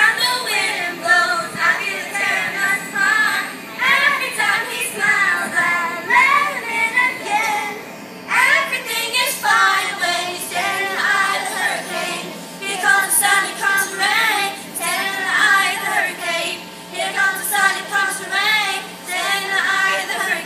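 A children's glee club singing a pop song together, with high young voices, dipping briefly about eight seconds in before the singing picks up again.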